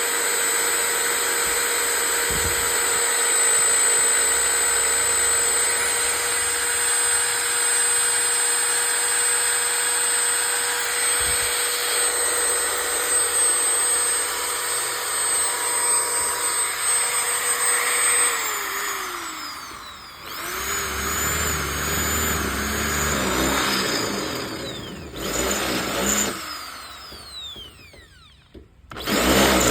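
Bosch 550 W 13 mm electric drill running at a steady speed with an even motor whine. About eighteen seconds in it winds down, then runs again with its speed rising and falling, and slows toward a stop near the end.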